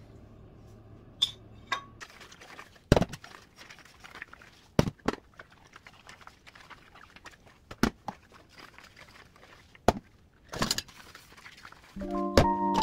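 Scattered light clinks and knocks, about eight in all, with a quiet background between them. Piano music comes in near the end.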